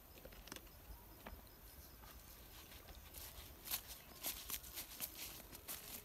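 Footsteps on dry grass and straw, starting about three seconds in as irregular crisp steps a few times a second, after a few faint clicks.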